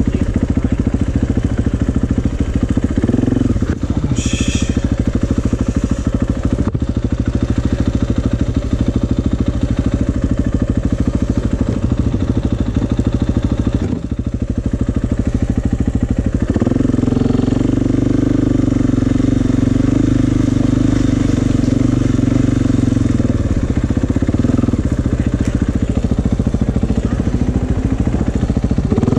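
Dirt bike engine running at a low, steady idle, then about halfway through it revs up and holds a higher, stronger note as the bike rides off. A brief high squeak or hiss sounds a few seconds in.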